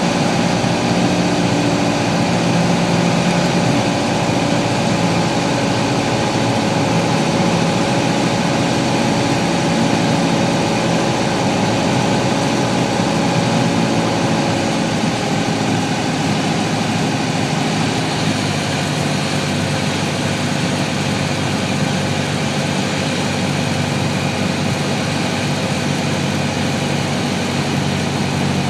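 Piper Archer II's four-cylinder Lycoming engine and propeller droning steadily, heard inside the cabin over a broad rush of air. The engine note drops a little past halfway, as power comes back for the landing.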